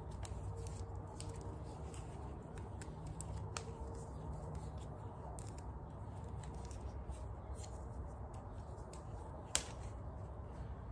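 Electrical tape being stretched and wrapped around a wire loom: faint, scattered crackling ticks, with one sharper click near the end, over a low steady hum.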